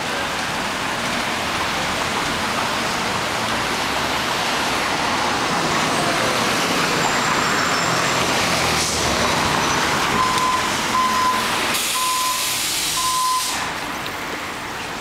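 City street traffic: cars and a truck going by. There are four short, evenly spaced beeps about ten seconds in, and a brief hiss over them.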